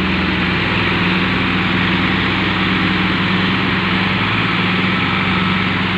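Farm tractor diesel engine running steadily at a constant pitch.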